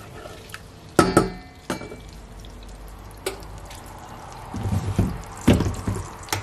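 Wooden spoon knocking and clacking against a stainless steel pot of melting butter as it is stirred and then laid across the rim, with several sharp knocks: the loudest about a second in, more around five to six seconds. A faint bubbling of the melting butter runs underneath.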